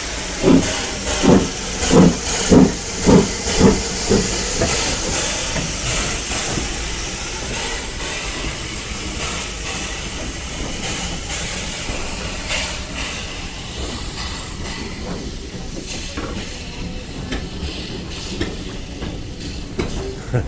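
Small steam tank locomotive pulling away from a standstill: a run of sharp exhaust chuffs, a little under two a second, in the first four seconds, then a steady hiss of steam as the train rolls past, thinning out after about fifteen seconds.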